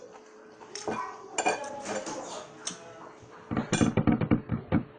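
Cutlery clinking and scraping against a plate during a meal: scattered single clicks, then a busier run of rapid clinks and scrapes near the end.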